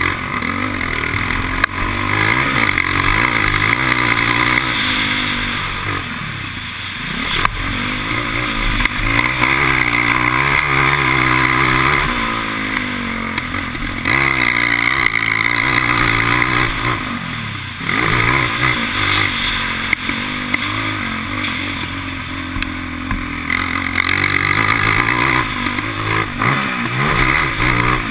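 ATV engine revving hard as the quad is ridden round a dirt track, its pitch climbing and falling again and again as the throttle opens and closes, with several brief drops as it backs off. Heard from a helmet-mounted camera.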